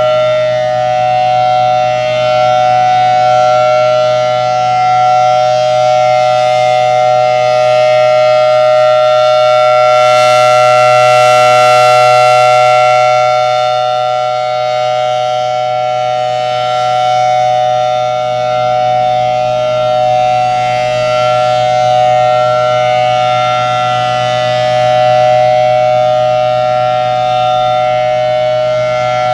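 Federal Signal Thunderbolt 1000T tornado siren with the 5/6 rotor sounding its steady alert tone: two notes held together at a constant pitch. It swells louder and brighter about a third of the way through as the rotating head sweeps toward the listener, then eases back.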